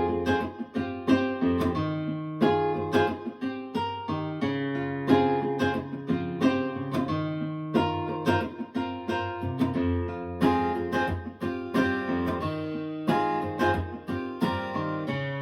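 Acoustic guitar music, a quick run of plucked notes and strums, played back through Fyne Audio F500SP loudspeakers.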